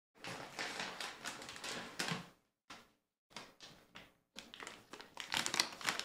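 Crinkling and rustling of a plastic snack pouch of sour gummy candies as it is pulled out and handled. It comes in spurts and grows busier near the end.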